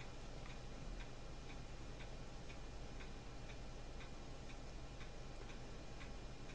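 Faint, even ticking at about two ticks a second over a low steady hum.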